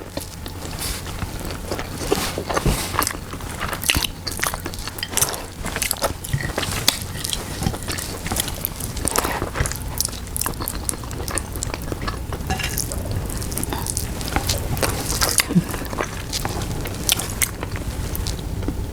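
Close-up chewing and lip-smacking of a person eating tender braised pork hock with rice: a constant stream of short wet mouth clicks and smacks over a steady low hum.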